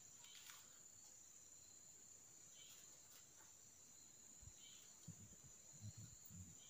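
Near silence: room tone with a faint steady high-pitched tone throughout, and a few soft low taps in the last couple of seconds.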